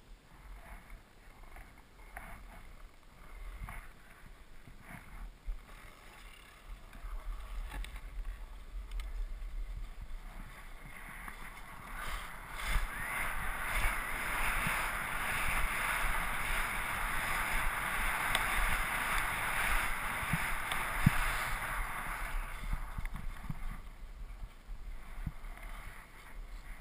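Skis hissing and scraping over packed snow, with wind rumbling on the microphone. Short scrapes at first, then a steady hiss that grows louder as speed builds, is loudest through the middle and eases near the end.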